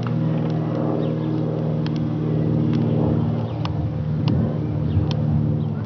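Cirrus SR22 light aircraft with a four-bladed propeller flying overhead: a steady engine-and-propeller drone with a stack of low tones that shifts slightly in pitch midway, and short high chirps over the top.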